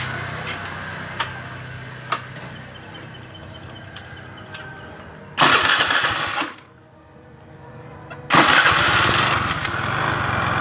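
Suzuki Nex automatic scooter being started: a first start about five seconds in runs for only about a second and stops, then the engine starts again a little after eight seconds and keeps running. The run carries the very harsh noise from the front of the CVT that comes from the CVT rarely being serviced and being badly worn.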